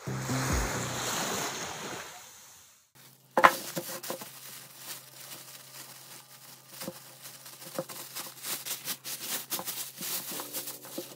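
Thin plastic carrier bag crinkling and rustling in many small crackles as hands untie its knotted handles and pull it open, after a single sharp thump about three seconds in. Before that, surf washing on a rocky shore fades out under music.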